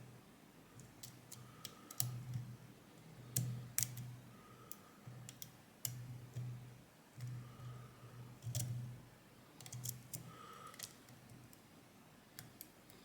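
Irregular sharp clicks of a dimple-lock pick working the top-row pins of a Yanai R high pin count lock held under tension.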